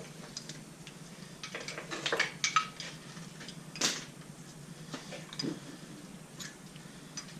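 Metal hand tools and engine parts clinking and knocking in scattered, irregular strikes as the engine is taken apart, loudest about two seconds in and again near four seconds.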